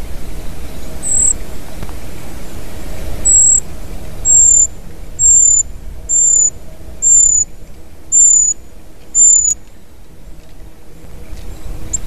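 A small bird giving a thin, high-pitched call, each note short and sliding slightly down in pitch, eight times: once, then seven more at about one a second. A low steady rumble runs underneath.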